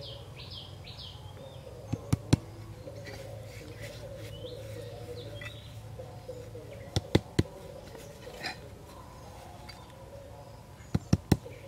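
Fired clay bricks knocking against each other as they are picked up and laid down, in three groups of two or three sharp clacks. Birds chirp in between.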